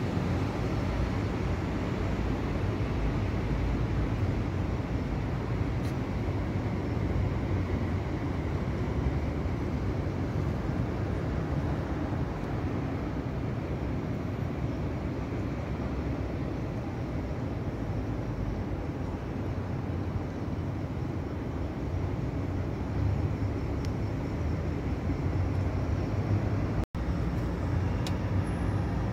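Steady low rumble of distant city traffic, with a momentary dropout near the end.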